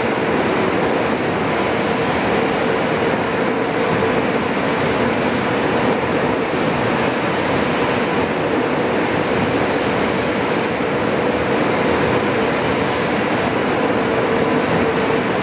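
MGI JetVarnish 3D digital varnish and foil embellishment press running a gold-foil embossing job: a steady machine noise with a constant hum under it and a high hiss that dips briefly now and then.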